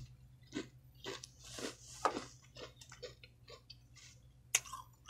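Chewing and crunching a Pringles potato crisp, irregular crunches two or three a second, with a sharp click near the end.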